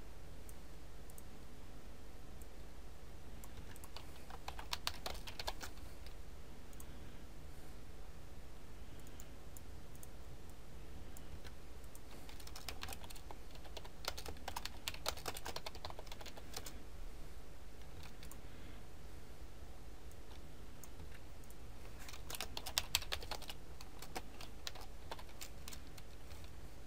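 Computer keyboard being typed on in several short bursts of key clicks, with pauses between them, over a steady low background hum.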